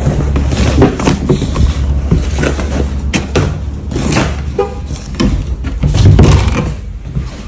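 A door being opened by its metal lever handle and pulled shut again: latch clicks and knocks, the loudest about six seconds in as it closes, over a heavy low rumble.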